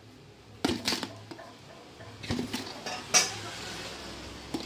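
Metal spoon clinking and scraping against a steel tumbler and plastic cups: several separate clinks spread through the few seconds.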